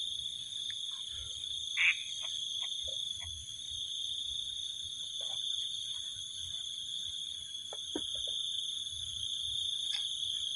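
A steady, high-pitched chorus of calling animals, such as insects, with a few faint scattered taps and knocks and a brief louder sound about two seconds in.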